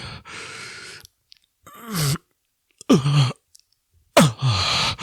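A man breathing hard and grunting with effort through a final exercise rep: a long exhale, then three short strained groans that fall in pitch, the last and loudest near the end.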